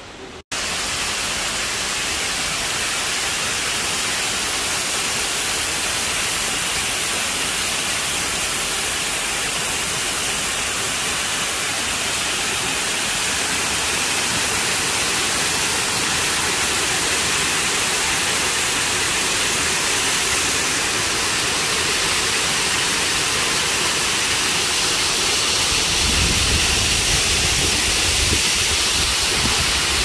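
Waterfall cascading onto rocks: a loud, steady rush of falling water that starts abruptly about half a second in and gains a deeper rumble near the end.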